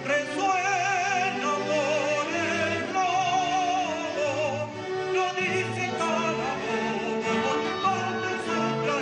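Operatic singing with a wide vibrato over a symphony orchestra.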